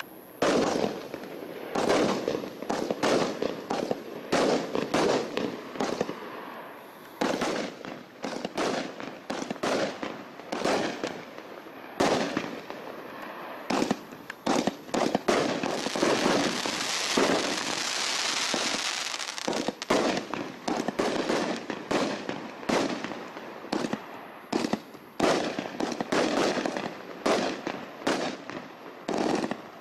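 Evolution Fireworks Black Hole (B119) firework cake firing: a long volley of launch thumps and bursts in irregular quick succession. Midway the bangs give way to a few seconds of dense, continuous crackling from its crackling-willow and glitter effects.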